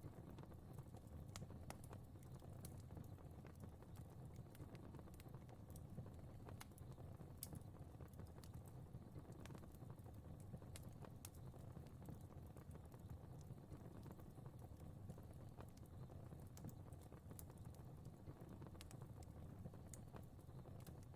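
Faint crackling fire: irregular sharp crackles and pops over a low, steady rumble of the flames.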